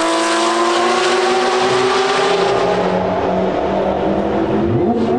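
Porsche 992 GT3 RS flat-six on a straight-piped Soul exhaust, loud and high-pitched, its pitch falling slowly as the car pulls away. Near the end a lower engine note comes in and rises sharply as a car accelerates.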